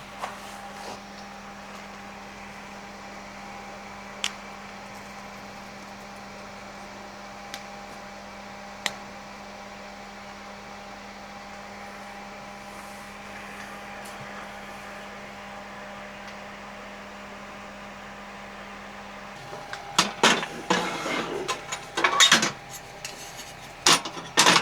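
A steady low electric hum that cuts off about nineteen seconds in, followed by a few seconds of clattering knocks, like dishes or utensils being handled.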